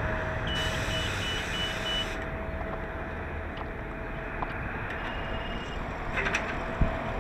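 New Flyer XDE40 diesel-electric hybrid bus idling with a low rumble and a steady mid-pitched hum. A run of short high warning beeps, about three a second, sounds from about half a second to two seconds in, then a single longer beep about five seconds in, and a few clicks near the end.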